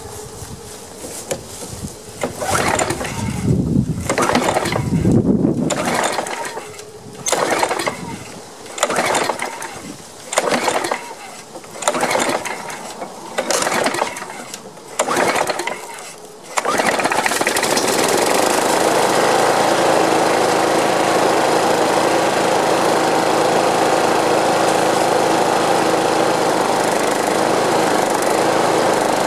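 John Deere JS60 walk-behind mower's single-cylinder OHV engine being pull-started by its recoil starter: about eight pulls, roughly one every second and a half, turn it over without it running. About 17 seconds in it catches and then runs steadily. The owner puts the start down to carb cleaner loosening a blockage in the carburetor.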